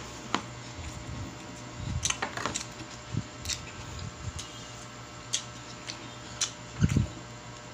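Scattered light clicks and taps, about ten at irregular intervals, over a faint steady low hum.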